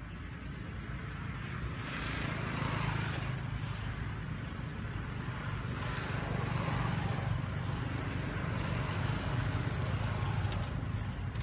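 Steady low motor vehicle engine hum with road noise that swells twice and eases, as of traffic passing.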